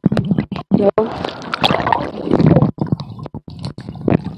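Muffled water sloshing and gurgling around a phone sealed in a waterproof case as it is dipped in and out of pool water. The sound is choppy and cuts out briefly several times.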